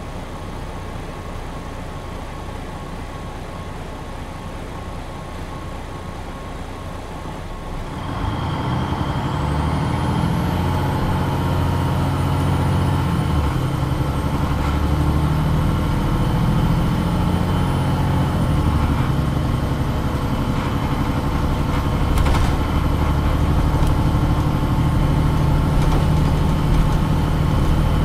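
MAN NG 313 articulated bus heard from on board: the diesel engine runs steadily at a low level, then grows louder about a third of the way in as the bus pulls away. A high whine rises with it and then holds steady while the bus drives on.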